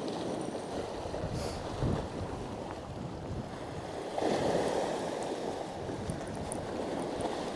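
Sea waves surging and washing over shoreline rocks, with gusty wind buffeting the microphone. A louder wash of surf comes about four seconds in.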